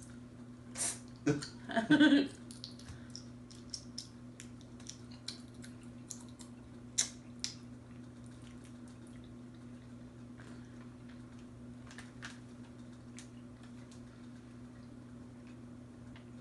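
Soft mouth sounds of people chewing gummy yogurt jelly candies: scattered small smacks and clicks, with a louder cluster about two seconds in, over a steady low hum.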